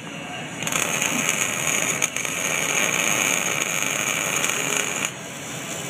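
MIG welding arc crackling and hissing as a bead is run on square steel tubing. It starts under a second in, breaks off briefly about two seconds in, and stops abruptly about five seconds in.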